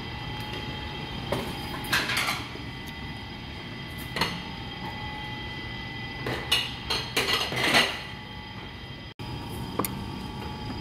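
Dishes and cutlery clinking and clattering at a table: a few short knocks about two and four seconds in, then a busier run of clinks about six to eight seconds in, over a steady background hum.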